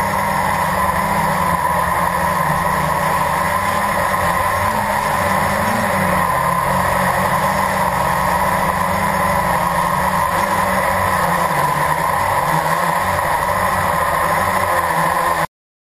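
Blade 350 drone's electric motors and propellers humming steadily in flight, heard close up through the camera mounted on it, with a slight wavering in pitch. The sound cuts off suddenly near the end.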